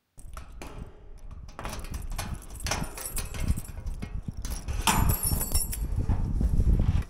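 Keys clicking and the handle clacking in the lock of a Novoferm ribbed-metal up-and-over garage door, then the door swung open with a rattling metallic rumble that is loudest near the end.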